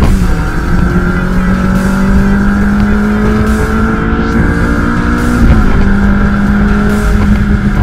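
Ferrari engine heard from inside the cabin, pulling under steady acceleration with its pitch slowly climbing, and dropping in pitch at upshifts right at the start and about five and a half seconds in.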